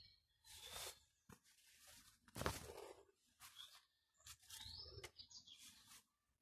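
Near silence with faint, scattered rustling of leaves and stems brushing against a handheld phone as it moves through potted chilli plants; the loudest brush comes about two and a half seconds in. A short rising chirp sounds about four and a half seconds in.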